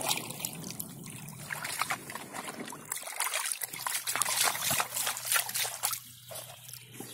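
Water sloshing and trickling in a black plastic gold pan as it is swirled and dipped in shallow river water. The splashing is loudest from about three to six seconds in, then eases off.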